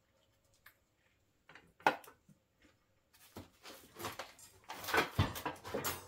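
Lengths of extruded aluminium frame rail being lifted out of a cardboard box and laid on a stack of other rails: a sharp clack about two seconds in, then a run of knocks, scraping and rustling, with a heavier thump about five seconds in.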